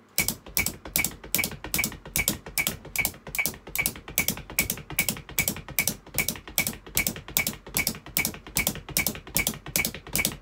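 Drum practice with hands and feet: red nylon brushes tapping a Gretsch practice pad, alternating with low thuds of the feet on the floor in a fast sixteenth-note pattern. A metronome ticks along at about 150 beats per minute.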